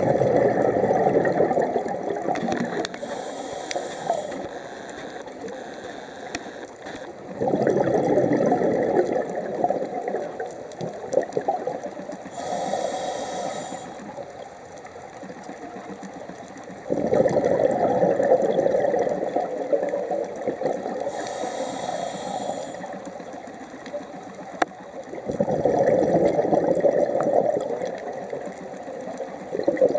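Scuba diver breathing through a regulator underwater: a short high hiss on each inhale, then a few seconds of rumbling exhaust bubbles on each exhale, repeating about every nine seconds, four exhales and three inhales.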